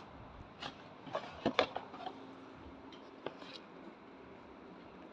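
Wrapped firecracker packets and cardboard boxes being handled and shifted: a few light taps and rustles, bunched in the first two seconds and again around three seconds in, over a faint steady hum.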